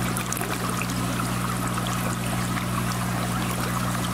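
Water draining and trickling through a bell siphon in a clay-pebble grow bed, heard close up from inside its PVC media guard, over a steady low hum. The siphon is in full flow, pulling the water down out of the bed.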